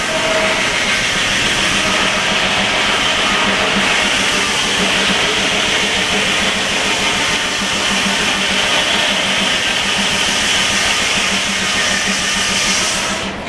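Circular sawmill blade cutting through a log: a loud, steady hiss over a low, even hum. The hiss drops off sharply near the end.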